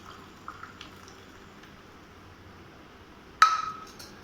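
A single sharp clink of a kitchen utensil or vessel struck or set down, ringing briefly and dying away, about three and a half seconds in, over faint kitchen background with a few small clicks, while the boiled spice drink is being served out.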